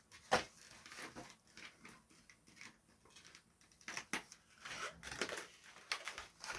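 Plastic doll packaging being handled: scattered rustles and clicks, the sharpest about a third of a second in.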